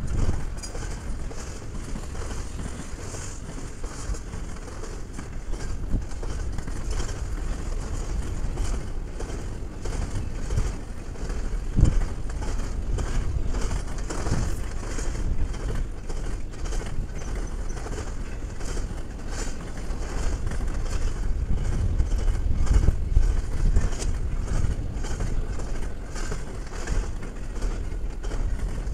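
Canadian Pacific double-stack intermodal container train rolling past: a steady rumble of steel wheels on rail with repeated clacks from the track, and one sharper bang about twelve seconds in.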